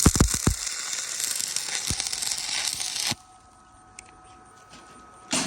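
Stick-welding arc crackling and sizzling steadily as a weld pass is laid on a hydraulic cylinder eye, with a few sharp pops at the start; the arc cuts off suddenly about three seconds in. A steady electrical hum remains, with a brief rush of noise near the end.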